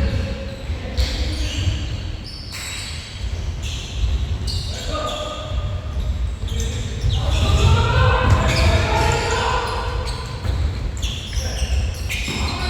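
Basketball bouncing on a gym floor during a game, with players' shouted voices echoing in a large hall.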